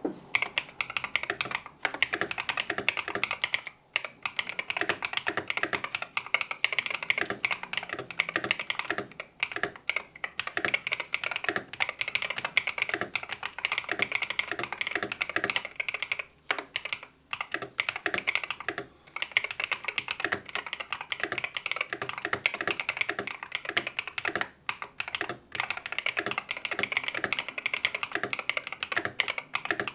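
Steady, fast typing on an Eweadn Battle68 rapid-trigger keyboard, with magnetic switches under ABS keycaps on an aluminium plate in a plastic case, broken by a few brief pauses. The sound profile is a bit loud and echoey despite its foam and silicone dampening.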